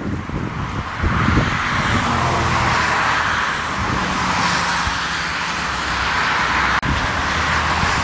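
Jet engines of a landing twin-engine airliner, a steady loud rushing roar that swells about a second in and holds, with gusty wind buffeting the microphone at the start. There is a brief break in the sound near the end.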